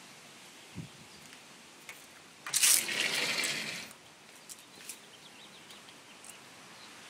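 A rustling swish of plant leaves brushing close against the phone's microphone, starting about two and a half seconds in and lasting about a second and a half, with a few faint ticks around it.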